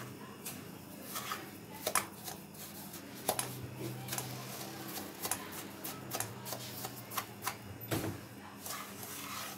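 Wooden spoon stirring roasted semolina with ghee in a pan: irregular scrapes, rustles and light taps of the spoon against the pan.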